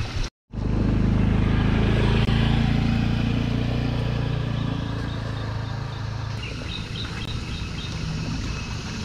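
Small motor scooter engine running as it rides along the path, loudest early on and slowly fading as it moves away. A few short high chirps near the end.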